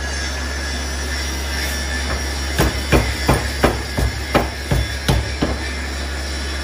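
Steam hammer, driven by compressed air, striking a hot billet of train-rail steel: a run of about nine quick blows, roughly three a second, starting a couple of seconds in, over a steady low hum.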